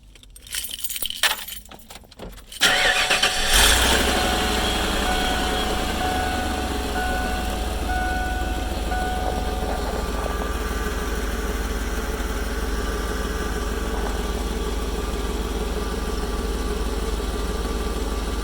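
Keys jingle in the ignition of a 1996 Ford Econoline E-150. About two and a half seconds in, its 5.8-litre V8 is cranked and catches with a brief rev, then settles into a steady idle. A pulsing high tone sounds for several seconds after it starts.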